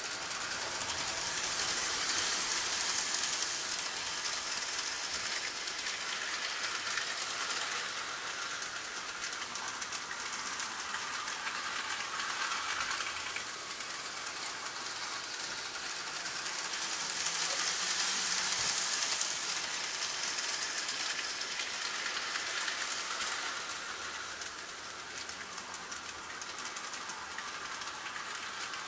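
N gauge model train running on the track: a high, steady rattling hiss of small wheels on rail and a tiny motor, swelling louder twice, a couple of seconds in and again around eighteen seconds.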